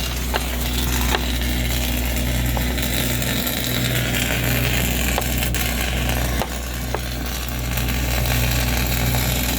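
Flux-core arc welding: a steady crackling, frying hiss of the arc with a few sharp pops, over a steady low hum from the welding machine.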